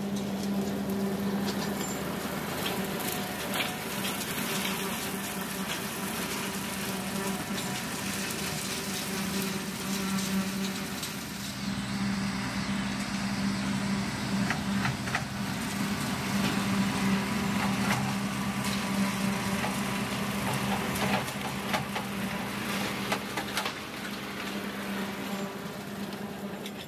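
John Deere 2038R compact tractor's three-cylinder diesel running steadily under load while its Frontier RC2072 rotary cutter mows grass, with a scatter of small ticks from cut material. It gets louder as the tractor passes close partway through, then eases off near the end.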